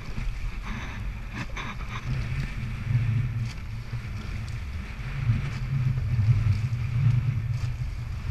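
Wind buffeting the microphone over the rush of water along a rowing eight's hull as the crew rows at full pressure, with light clunks from the oars about every two seconds.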